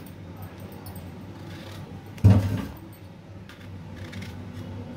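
Quiet kitchen-knife handling while small eggplants are cut over a plastic chopping board, with one sudden dull thump a little over two seconds in and a few faint clicks after it.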